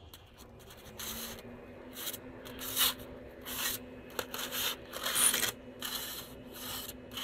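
Aluminium foil crinkling and rustling in irregular bursts as a foil-wrapped pork butt is handled to test it for tenderness.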